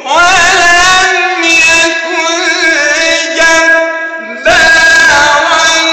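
A man reciting the Quran in a melodic, ornamented chanting style, holding long wavering notes. One drawn-out phrase ends about four seconds in and the next begins right after.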